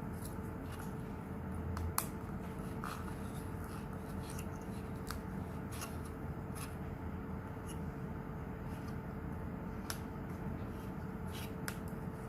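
Light clicks and rustles of small toy pieces being handled and searched through, the sharpest click about two seconds in, over a faint steady hum.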